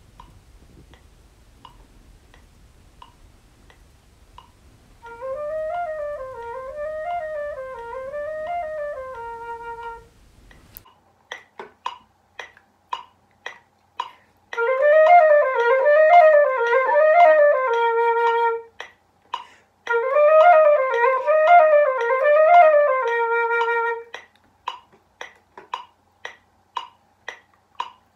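Concert flute playing a short rising-and-falling figure several times over, ending on a held note: first slowly and softly, then louder and faster, a passage worked up from slow practice to a quicker tempo. Between the faster phrases, and running on after them, come steady clicks about twice a second.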